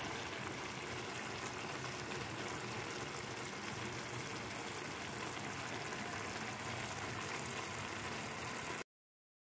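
Minced meat, potato and carrot stew simmering in a wok over a gas burner, a steady hiss of cooking liquid. It cuts off abruptly near the end.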